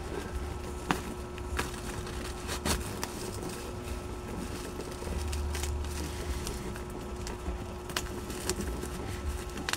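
Scattered crinkles and sharp clicks of a plastic-wrapped parcel being handled and opened, over a steady low hum.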